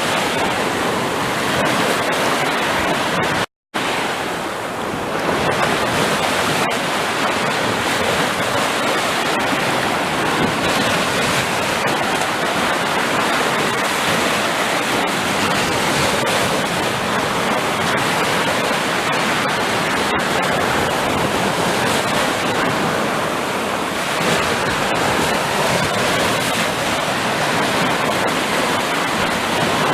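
Sea surf: a steady wash of breaking waves, broken by a brief cut to silence about three and a half seconds in.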